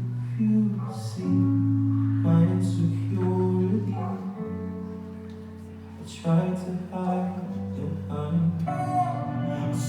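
Music: a song with singing over held bass notes and guitar.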